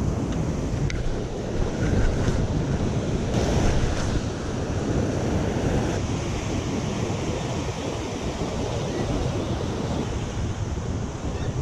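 Sea surf washing against coastal rocks, a steady rushing wash that swells briefly about three to four seconds in, with wind buffeting the microphone.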